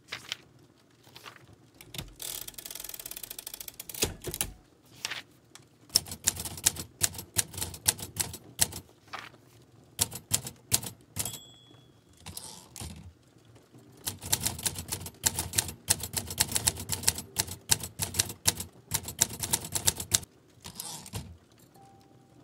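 Manual typewriter typing in quick runs of key strikes, with a single bell ding about eleven seconds in followed by a short carriage-return swish. There is a two-second rasp near the start.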